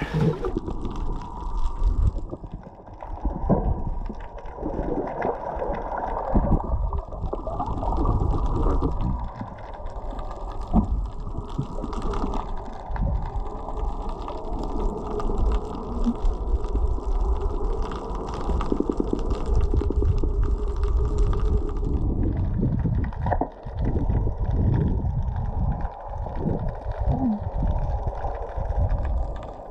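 Water sloshing and gurgling, heard underwater from a submerged camera. About two seconds in the sound turns muffled and low, with faint scattered ticks above the low rumble and uneven surges in loudness.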